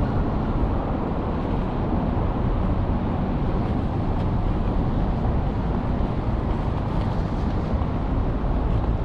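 Steady low rumble of city street traffic, with no single vehicle or event standing out.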